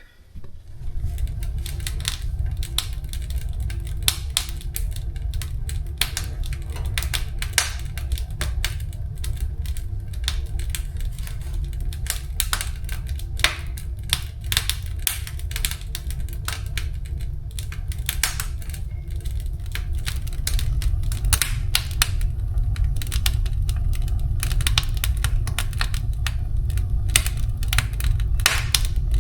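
Wood fire crackling in a fireplace stove just after lighting, with many irregular sharp pops and snaps over a steady low rumble. The sound starts abruptly about half a second in.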